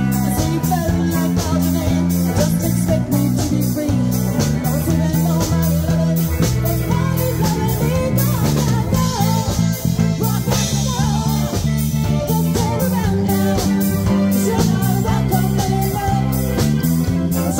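Live band playing a steady-beat rock number, with electric bass and drum kit driving the rhythm.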